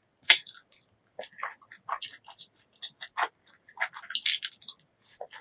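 Close-miked eating sounds: a sharp bite about a third of a second in, then wet chewing with many small clicks and squishes, busiest again around four seconds in.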